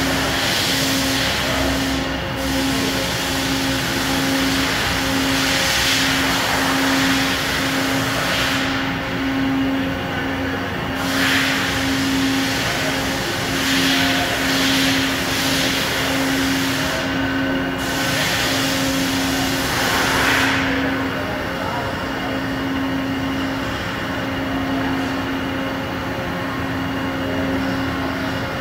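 Doosan DCM 2740 CNC bridge mill running under power: a steady machine hum with a low tone that pulses about once a second, and a hiss that swells and fades several times.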